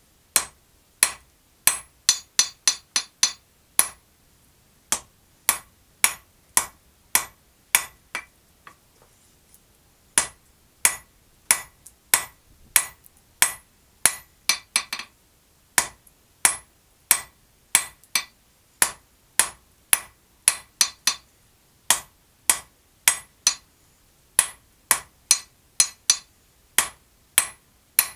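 Blacksmith's hand hammer striking red-hot steel bar stock on an anvil, a steady run of sharp blows at about two a second. The blows pause for about two seconds some eight seconds in, and there are short runs of quicker strikes twice.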